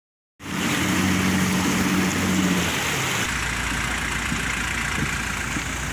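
Small car ferry's engine running under way, with wind and rushing water. About three seconds in the engine note gives way to a lower steady hum.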